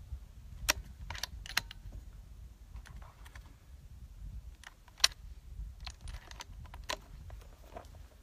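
Scattered sharp clicks and knocks of a bolt-action rifle being handled on a shooting rest, the loudest about five seconds in, over a faint low outdoor rumble.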